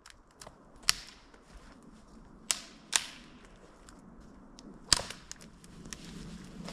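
A handful of sharp snaps and clicks at uneven intervals, four of them loud and the rest faint, over quiet forest background.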